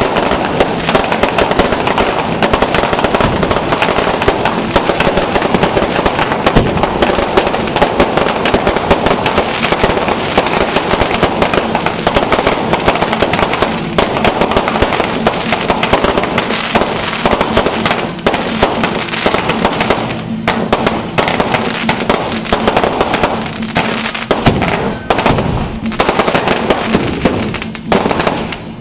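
Fireworks and firecrackers going off in a dense, rapid crackle of bangs, thinning out in the last several seconds.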